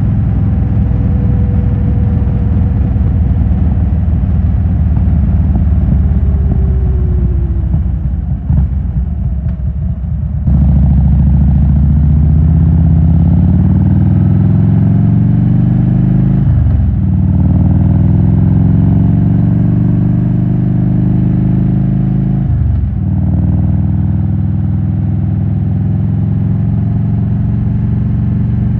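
2007 Harley-Davidson Road King Classic's 96-cubic-inch V-twin through Rush Big Louie mufflers: it runs steadily, the revs fall off for a few seconds, then about ten seconds in it accelerates hard with climbing revs and shifts up twice.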